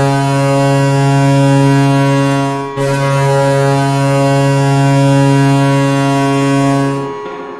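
Toronto Maple Leafs goal horn: a deep, loud air horn sounding in long steady blasts, with one short break about three seconds in. It dies away about seven seconds in as music comes in.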